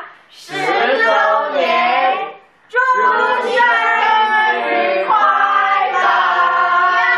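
A group of adults and children singing a song together, breaking off briefly twice in the first three seconds, then singing on without a break.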